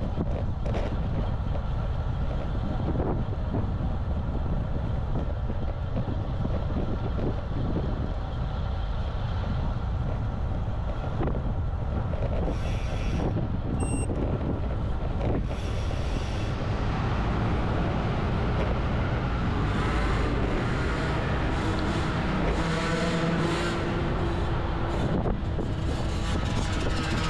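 Steady wind noise on a GoPro microphone while riding a road bike, over the hiss of the tyres on the road. In the second half a motor vehicle's engine is heard passing.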